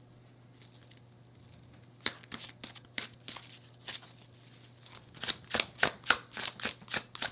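Tarot deck shuffled by hand: a couple of quiet seconds, then the snap and slap of cards, scattered at first and becoming a quick run of about three a second near the end.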